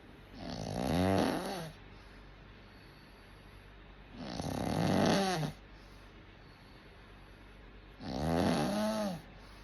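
Snoring: three long snores about four seconds apart, each rising and then falling in pitch, with quiet breathing gaps between them.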